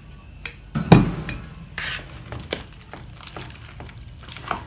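A thump about a second in as a metal water bottle is set down on the counter, then a spoon stirring thick, wet oat mixture in a plastic tub, with small clicks and scrapes against the tub.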